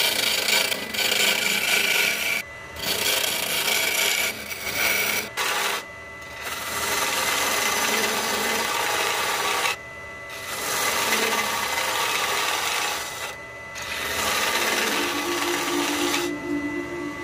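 Gouge cutting a spinning maple burl on a wood lathe: a loud, steady hiss of wood shaving off, broken by short pauses every few seconds as the tool is eased off the wood.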